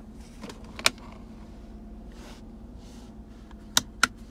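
Three sharp plastic clicks of the center-console heated-seat switches being pressed: one about a second in, then two in quick succession near the end. A steady low hum of the idling vehicle's cabin runs underneath.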